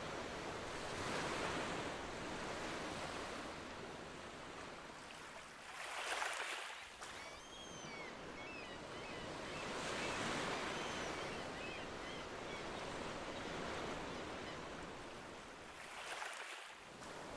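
Ocean waves washing onto a shore, the surf swelling and easing every few seconds, with a few faint high chirps around the middle.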